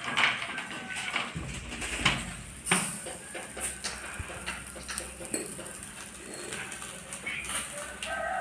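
Metal skewers of chicken clinking and knocking against a small metal charcoal grill as they are handled and turned, a handful of sharp separate clinks.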